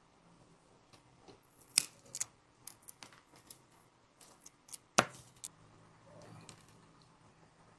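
Scattered sharp clicks and taps of small hand tools working on an iPhone 16, the loudest about five seconds in, followed by a soft rustle.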